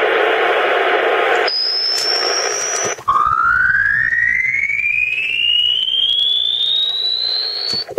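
Shortwave radio reception of a strong, unidentified signal that drifts in frequency. It starts as a dense buzzing hum and breaks about a second and a half in into a steady high whistle. After a brief dropout it becomes a whistle that glides smoothly upward in pitch for about five seconds and cuts off just before the end.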